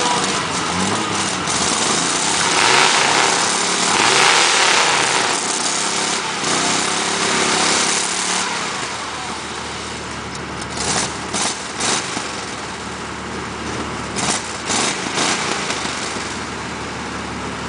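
Lifted four-wheel-drive pickup truck's engine revving hard while bogging through mud, its tires spinning and throwing mud. About eight seconds in the engine drops to a lower, steadier run, with a few short thumps after that.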